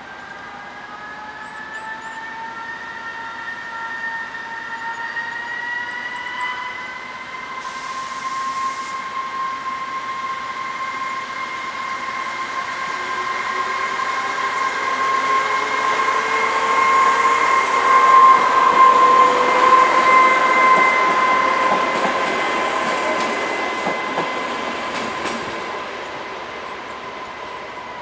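Class 854 diesel railcar pulling away and passing close by. Its engine and transmission whine rises in pitch as it gathers speed over the first several seconds, then holds steady. It is loudest about two-thirds of the way through and fades as it goes. A brief hiss comes about eight seconds in.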